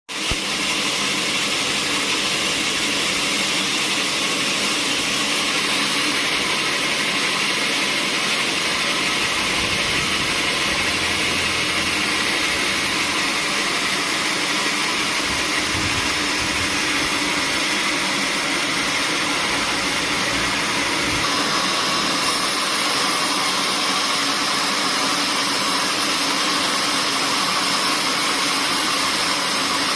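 Sawmill machinery running with a steady, loud mechanical noise; its tone shifts slightly about two-thirds of the way through.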